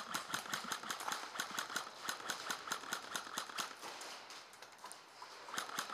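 Airsoft guns firing in quick, uneven runs of sharp snapping shots, thinning out about four seconds in and picking up again near the end.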